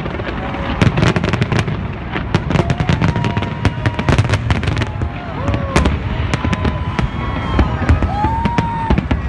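A large fireworks display with bangs and crackles in rapid, unbroken succession over a low rumble.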